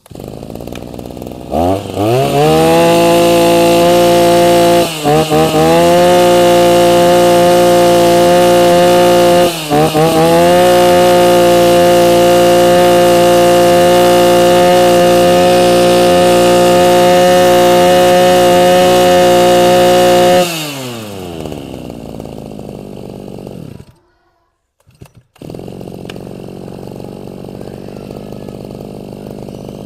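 Shindaiwa 250 brush cutter's 25cc two-stroke engine starting and revving up to a high, steady speed. The throttle drops off briefly twice, then is held open for about fifteen seconds. Near twenty seconds in the throttle is released and the revs fall away.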